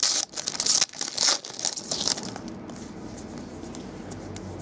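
Foil trading-card pack wrapper being torn open and crinkled in loud bursts for about two seconds, then settling into quieter rustling.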